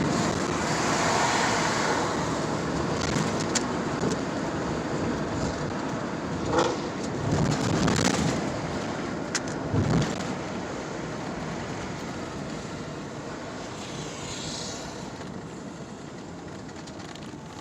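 Sports car engines running, with several loud surges of revving or passing cars in the middle, then the sound fading gradually.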